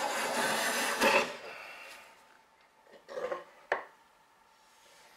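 Stanley bench plane taking a long stroke along the edge of an oak board, ending with a clunk about a second in. Then a few light knocks and a sharp click as the board and tools are handled.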